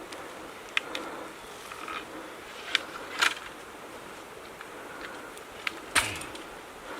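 Branches snapping and cracking in dense spruce brush while a trail is cut through it: about five sharp snaps at irregular intervals, the loudest near the end, over a faint steady background hum.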